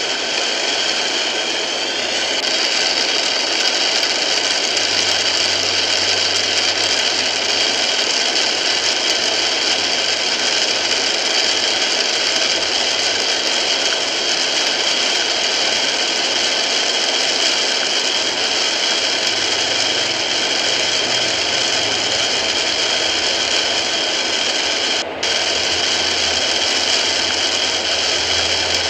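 Heavy rain beating on a moving car's windshield and roof, heard from inside the cabin as a loud, steady hiss over a low engine hum. The sound cuts out for a moment near the end.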